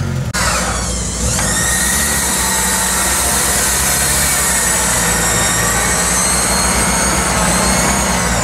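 UAZ-469 off-roader winching itself through mud on a strap anchored to a tree: a steady whine that rises about a second in, holds, and falls away near the end, over the engine running.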